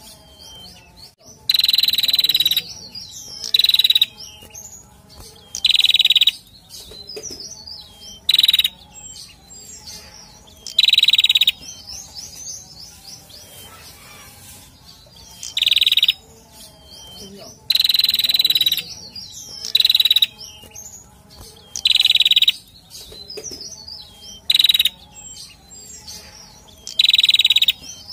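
Male prenjak, a small grey songbird with a rufous cap, singing: a loud phrase of about half a second, repeated roughly every two seconds with one longer pause midway, with soft high chirps in between.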